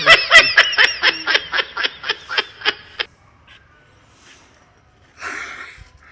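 A person laughing: a fast run of short 'ha' pulses, about five a second, lasting about three seconds and stopping abruptly. About five seconds in comes a short rasping noise.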